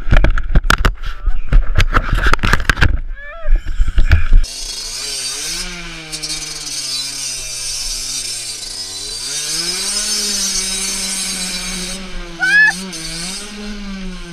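A burst of loud, irregular knocks and clatter, then a dirt bike engine running steadily under a high hiss. Its revs sag about halfway through and pick up again.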